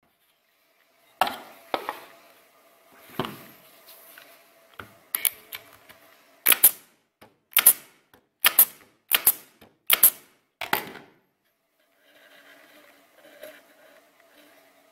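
Pneumatic brad nailer firing repeatedly into a pine board: a run of sharp shots, roughly one a second, over about ten seconds, then stopping. The nails are left standing proud because the nailer's driver blade is worn or broken at the tip.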